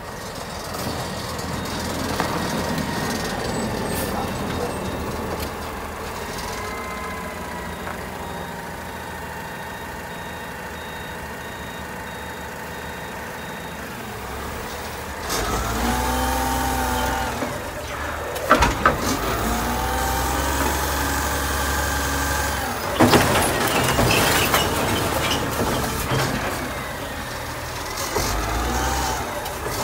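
McNeilus front-loader garbage truck with a Curotto Can arm, its engine revving up repeatedly to drive the hydraulics as the arm grabs a dumpster and lifts it toward the hopper. Two loud bangs of the container come in the second half.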